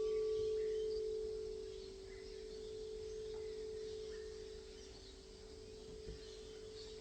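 Singing bowl ringing after a strike: one steady tone that slowly fades with gentle swells in loudness. A higher overtone dies away about a second in.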